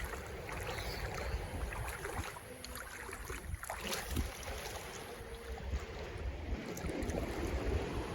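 Wind rumbling and buffeting on the microphone over gentle water noise at the shore.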